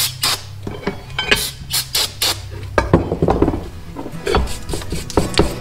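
A short hiss of aerosol brake cleaner, then a hand tool scraping loosened paint off cast metal reloading-press parts in a plastic tub, with repeated scrapes and clinks of the parts.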